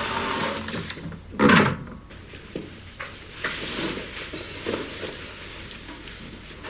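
Indoor door being opened and shut: one loud swing-and-knock about a second and a half in, then a few lighter knocks.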